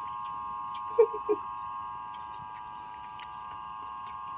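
Steady chorus of night insects such as crickets: a constant high trilling, with two short low sounds about a second in.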